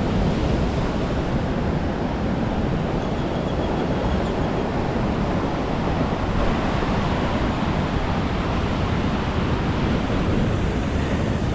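Ocean surf washing steadily on the beach, mixed with wind buffeting the microphone.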